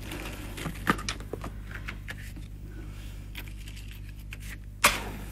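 Cigarette pack being handled as cigarettes are taken out: light rustles and small clicks, with one sharper, louder click near the end.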